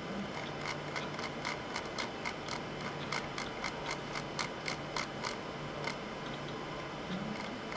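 A rapid run of light, sharp clicks, about four a second, that stops about five seconds in, over a faint low hum.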